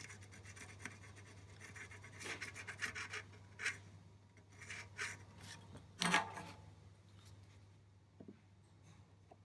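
Soldering iron tip rubbing and scraping against a fret on a rosewood fingerboard as the fret is heated with solder to loosen it for pulling, in a few short scratchy strokes with a louder knock about six seconds in. A low steady hum runs underneath.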